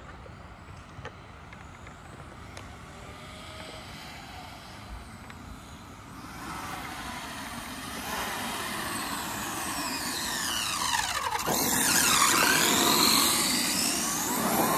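Brushless electric motor and drivetrain of a Kyosho Mad Force RC monster truck, whining as it is driven. The whine is faint at first and grows louder from about six seconds in. Its pitch sweeps up and down with throttle and speed, and it is loudest around two-thirds of the way through.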